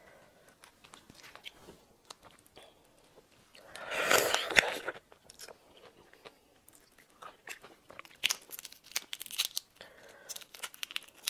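Close-miked crackling and snapping of a shrimp's shell being peeled off by hand, with one louder crunching spell about four seconds in and a run of sharp clicks later on.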